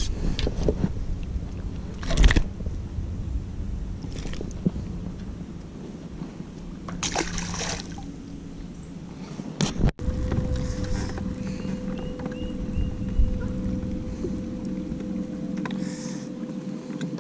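A few brief splashes and knocks on a boat, then, from about ten seconds in, the steady hum of a bow-mounted electric trolling motor running.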